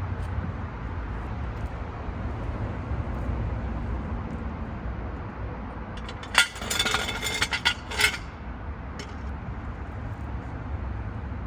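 Metal tools clinking and rattling for about two seconds, starting around six seconds in, over a steady low rumble.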